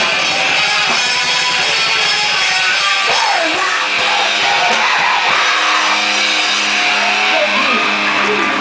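Live rock band playing loud, with distorted electric guitars and drums. From about six seconds in, a sustained chord rings on underneath.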